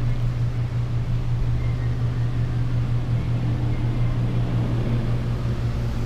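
Steady low hum of the camper's ducted air conditioning running.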